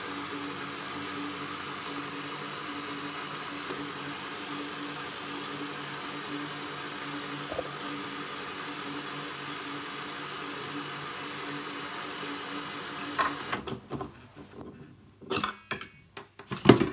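Kitchencook stand mixer's motor running steadily at low speed, its wire whisk beating a liquid egg batter in a steel bowl. The motor stops about three-quarters of the way through, followed by a few sharp clicks and knocks as the whisk is unlatched and lifted out, the loudest near the end.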